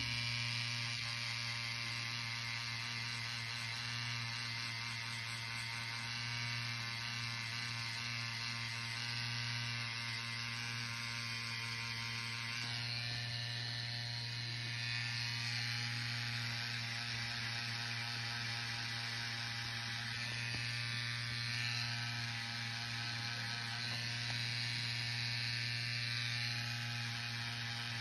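Stigma Stylist rotary tattoo pen running with a steady low hum.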